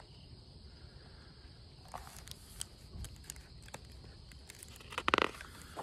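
Quiet handling noise of a picture book: faint scattered taps and paper rustles as it is held up and lowered, over a low outdoor rumble, with one brief louder sound about five seconds in.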